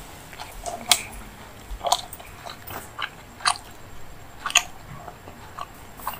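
Close-miked mouth sounds of a person chewing puri with paneer masala: wet clicks, the sharpest about once a second.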